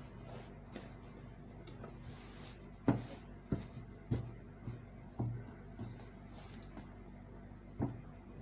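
Heavy denim fabric being handled on a wooden table: a brief rustle as it is turned over and laid flat, then a run of soft thumps about half a second apart as hands press and smooth it down, with one more thump near the end.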